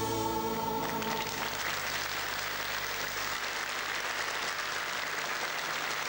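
A song's last held note, sung with band backing, ends about a second in, and a studio audience breaks into steady applause.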